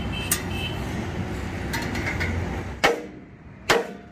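A sledgehammer strikes steel twice, about a second apart, each blow sharp with a short metallic ring. Before the blows there is a steady low rumble.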